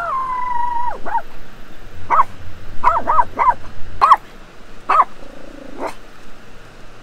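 Small Maltese dog giving a long drawn-out whine, then a string of short high barks and yips over the next few seconds.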